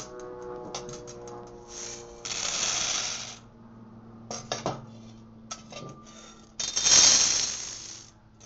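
Freshly roasted coffee beans poured back and forth between a metal bowl and a plastic colander to cool them, a rattling shower of beans twice, about two seconds in and again, louder, near seven seconds. Scattered clicks of single beans and bowl knocks between the pours.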